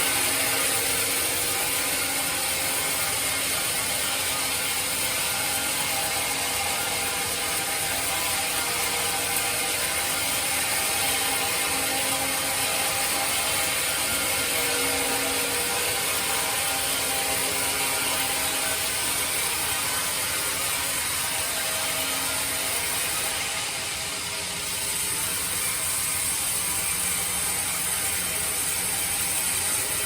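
Sawmill bandsaw running steadily: a continuous mechanical sound with a strong high hiss and several steady tones. The level dips briefly about two-thirds of the way through.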